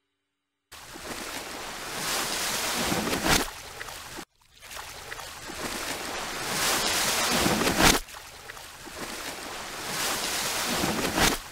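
Whoosh sound effects of the kind laid under animated title cards: three swells of rushing noise, each building for a few seconds to a sharp burst and then cutting off abruptly. There is silence for the first moment before the first swell begins.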